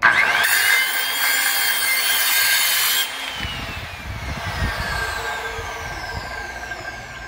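Vintage Skilsaw Model 77 worm-drive circular saw cutting through a wooden board for about three seconds, with a steady motor whine under the rasp of the blade. The cut then finishes and the motor and blade wind down, the whine falling in pitch.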